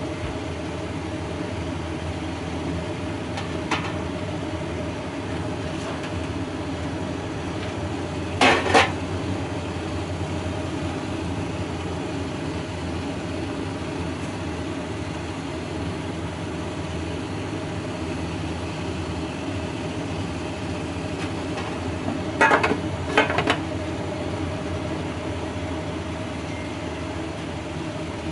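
Steady background hum with a few sharp knocks: a double knock about a third of the way in, and three quick knocks near the end, a kitchen knife striking a wooden cutting board as it cuts the end off a steamed sweet potato.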